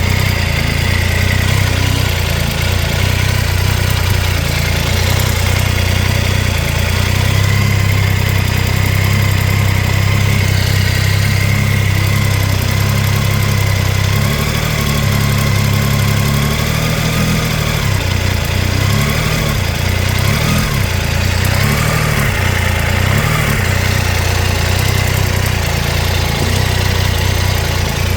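Triumph Tiger 800 XRT's inline three-cylinder engine idling, with a few small blips in engine speed in the second half, and the ticking noise that persists after new exhaust header crush gaskets were fitted; the spark plugs check out fine and the cause is unknown.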